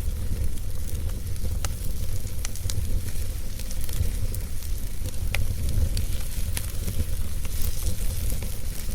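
Wood fire in a fireplace crackling, with scattered sharp pops about once a second over a steady low rumble and hiss.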